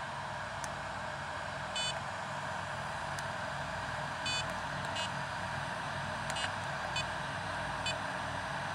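The cooling fan of a Gens Ace D300 LiPo charger runs steadily. Over it the charger gives about seven short, unevenly spaced beeps as its buttons are pressed to stop a channel and change the charge current.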